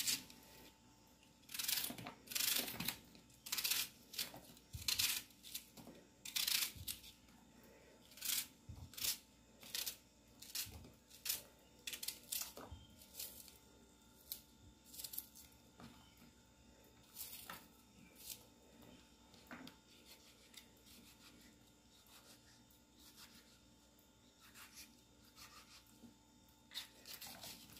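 Kitchen knife cutting through a raw onion held in the hand: a series of short, crisp cuts, about one a second, growing fainter in the second half.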